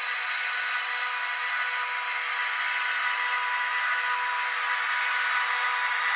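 Model electric train running along the layout track: a steady motor whine with wheel and track rumble, slowly growing louder as the train comes closer.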